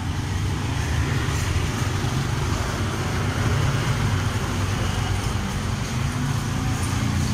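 Steady road traffic: a continuous low rumble of vehicle engines passing on the street.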